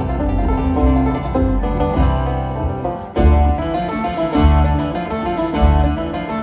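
Live bluegrass band playing, with a picked banjo to the fore over strummed acoustic guitar. About three seconds in the music drops for a moment, then the band comes back in fuller over a regular low bass pulse.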